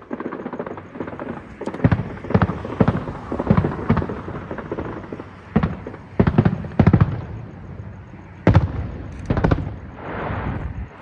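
Aerial fireworks shells bursting overhead: a rapid, irregular series of sharp bangs with rumbling echoes, and a rushing crackle near the end.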